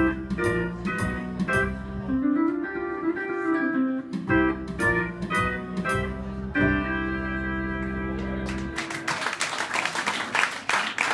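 Pedal steel guitar playing sustained notes and chords, with a slow pitch bend gliding up and back down, until the last chord ends about nine seconds in. Then an audience claps.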